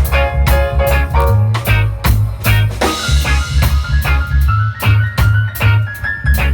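Live reggae band playing an instrumental break: drum kit and bass under short repeated chord stabs. A cymbal crash comes about three seconds in, and a held lead melody comes in after it.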